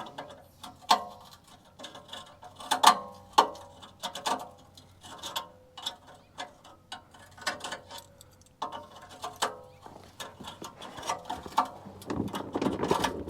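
Hand tools working on a rusted exhaust pipe joint: irregular metallic clicks and clinks, each with a short metallic ring, the loudest about three seconds in.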